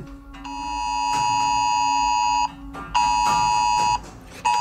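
iPhone Wireless Emergency Alert tone blaring in its alert rhythm, here for a flash flood warning: one long blast of about two seconds, then a one-second blast after a half-second gap, and a third blast starting near the end.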